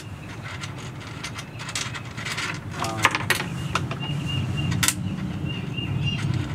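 Small metal screws and hardware clicking and clinking as they are handled, with a few sharp clicks, the loudest about three and five seconds in, over a steady low hum.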